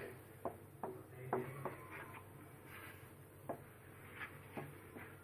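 A spoon knocking and scraping against a cooking pot while stirring, as sugar is worked into the fruit purée: light, sharp knocks at uneven intervals, more of them in the first two seconds.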